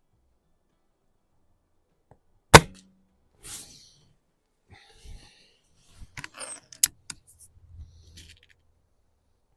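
A single sharp shot from a .22 BSA Super Meteor spring-piston break-barrel air rifle about two and a half seconds in, with a softer sound about a second later. A cluster of smaller clicks and knocks follows around six to eight seconds in.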